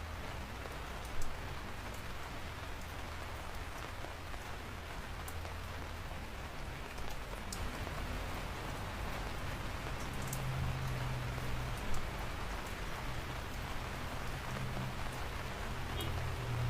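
Steady rain falling on surfaces, with a few louder drops striking close by, one about a second in and another around twelve seconds.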